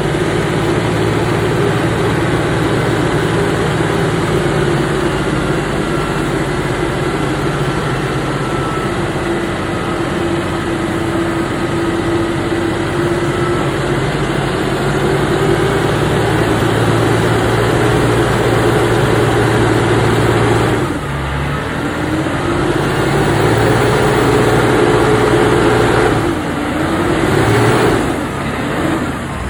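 Logging truck engine running under load. Its pitch drops sharply about 21 seconds in, as at a gear change, then climbs again, and it rises and falls a few more times near the end.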